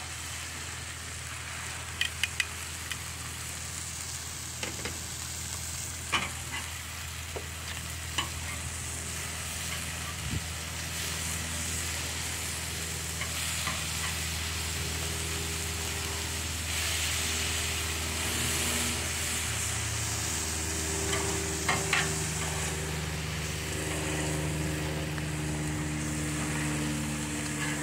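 Burgers, bacon and hot dogs sizzling on a Blackstone flat-top griddle, with a few sharp clicks and scrapes of a metal spatula and burger press against the cooking surface. A low steady hum runs underneath, joined about halfway through by a higher droning tone.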